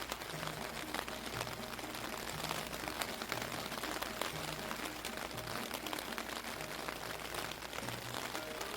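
Heavy rain falling, a dense steady patter of drops hitting surfaces, with soft background music of slow low notes.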